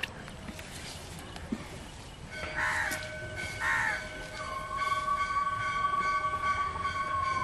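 A distant horn sounds a long, steady note made of several tones, starting about two seconds in and beginning to slide down in pitch near the end. Two short cawing bird calls come over it about a second apart.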